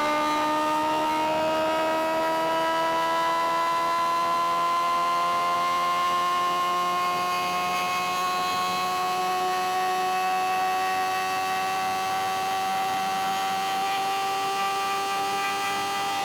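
Suzuki GSX-R 750's inline-four engine pulling steadily under way, its note rising slowly and evenly as the bike gathers speed in one gear.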